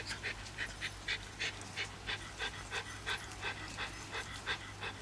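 Basset Fauve de Bretagne puppy chewing and smacking at a treat held in the fingers, a quick wet mouth sound repeated about three times a second.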